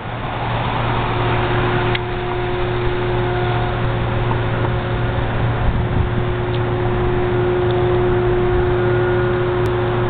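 A steady engine drone, a low hum with a few held tones above it, under an even haze of outdoor noise.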